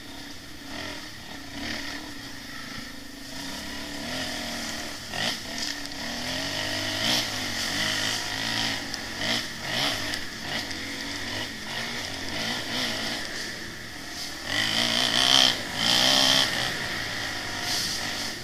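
Dirt bike engines revving up and down as they ride along a trail, with the loudest bursts about fifteen seconds in.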